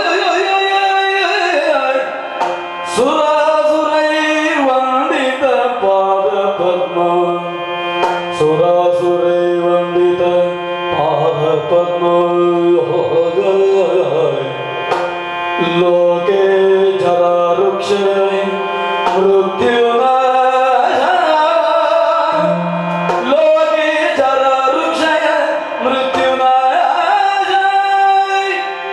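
Yakshagana music: a singer (the bhagavata) sings a slow, held, melismatic line over a steady drone, with drum strokes accompanying.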